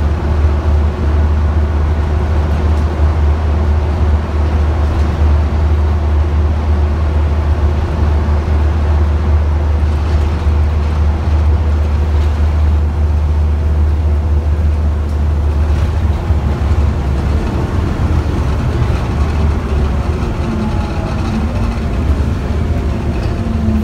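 Bus engine running under load while the bus drives along the road, heard from inside the passenger saloon: a loud, steady, deep drone with road noise, which breaks up about two-thirds of the way in as the engine note changes.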